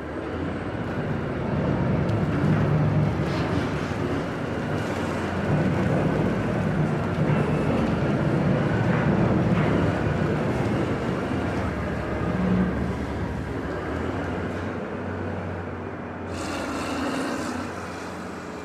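Heavy underground mine scaling machine's engine running steadily as it works its scraper boom, with a hiss starting near the end.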